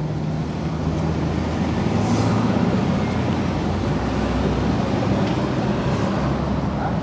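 Steady city traffic rumble, swelling a little about two seconds in.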